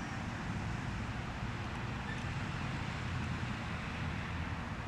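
Steady low rumble of vehicle road noise with an even hiss over it, unchanging throughout.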